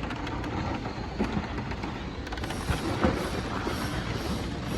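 A large drum of main power cable turning on its support stand as the cable is paid out, with steady rattling and a dense run of metal clicks and knocks.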